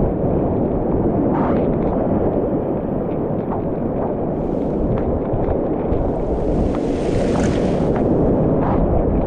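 Steady loud rush of a high-water whitewater creek rapid heard from a kayak running it, with short splashes of paddle strokes and waves every second or two. The spray and hiss swell up around seven seconds in as the boat drops through a wave train.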